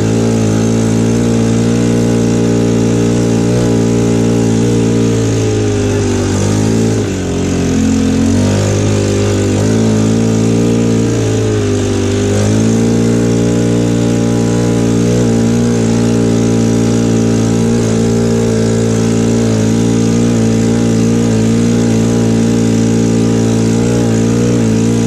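ATV engine running steadily under way, heard close from the rider's seat. Its revs drop briefly and pick up again twice, about six and about twelve seconds in.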